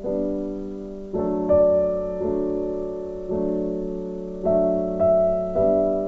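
Background piano music: slow sustained chords, a new one struck about every second and fading away.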